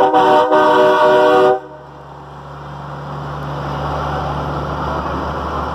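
Semi truck's air horn sounding a loud multi-note chord for about a second and a half, with a brief break just after it starts, then cutting off sharply. A diesel truck engine then runs with a steady low hum that grows louder as it passes.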